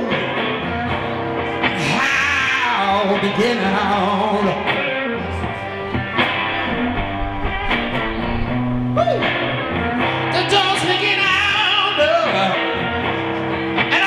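Blues-rock song: a man sings over a distorted electric guitar.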